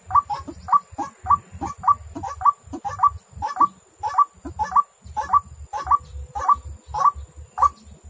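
White-breasted waterhen calling, the 'ruak-ruak' call: a steady run of short, harsh notes, about three a second.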